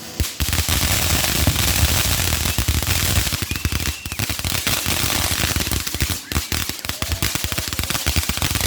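A string of firecrackers going off: a dense, rapid run of sharp bangs, many a second, that starts just after the beginning, with brief lulls about four and six seconds in.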